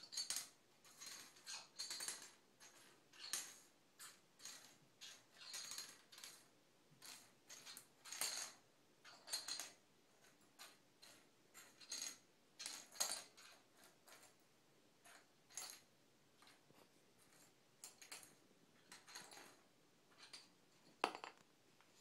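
Small bottle cap batted by a kitten, skittering and clattering across a hard floor in irregular runs of light, sharp clicks, with one louder knock near the end.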